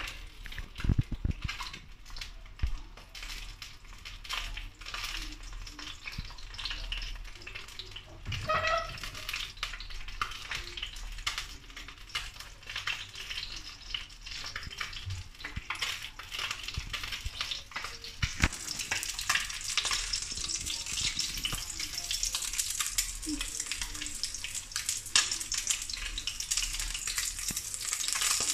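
Threadfin fish fillet frying in shallow oil in a pan: a steady sizzle full of small crackles and pops. The sizzle grows louder and brighter about two-thirds of the way through.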